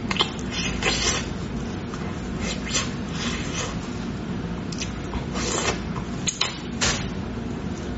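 Close-miked eating of braised pig tail: a string of short sucking and smacking mouth sounds as meat is bitten and sucked off the bone, over a low steady hum.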